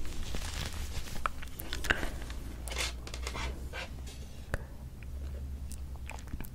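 Close-miked handling sounds: soft rustling of a knit sweater collar, then light taps and clicks as a wooden tray holding two potato-bread buns is picked up and moved, over a low steady hum.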